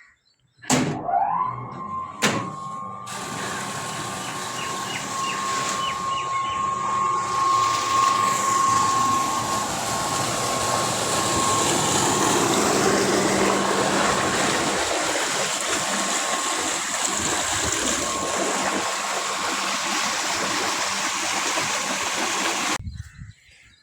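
A tubewell pump starting up with a knock and a rising whine that settles into a steady tone. Water then gushes out of the outlet pipe in a loud, steady rush that cuts off suddenly near the end.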